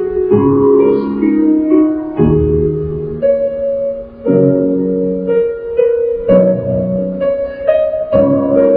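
Slow instrumental background music led by piano, with sustained chords changing about every two seconds.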